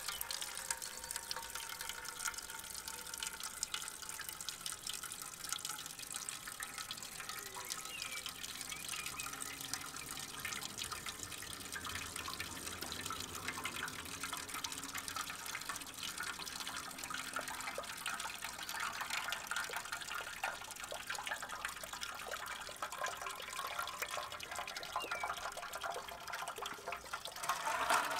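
Old engine coolant draining from a Honda CB500F's coolant drain hole in a steady splashing stream onto paving stones. Near the end it thins to a trickle falling into a metal drain pan.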